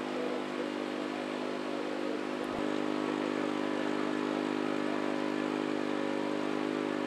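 Diesel engine running steadily at idle, an even low hum, with a brief click about two and a half seconds in.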